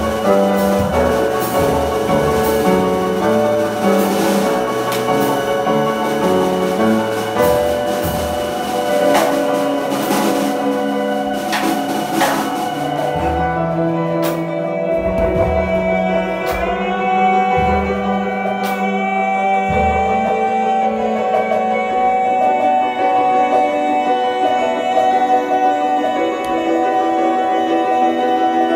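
Live improvised music on piano and keyboard, with low drum-like thumps. About halfway through, the sound thins out to a few long held notes, and a singer's voice joins in on the mic.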